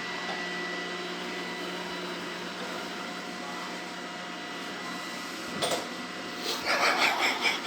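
Robot vacuum cleaner running with a steady hum and a thin high whine. Near the end a louder, choppy noise rises over it.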